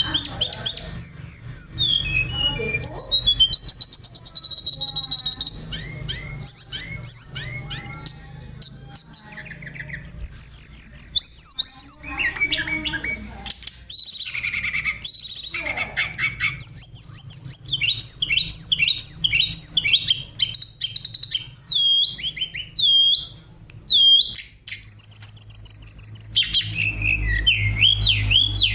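Oriental magpie-robin (kacer) singing a fast, varied song of clear whistles, trills and quick sweeping chirps, phrase after phrase with only brief pauses.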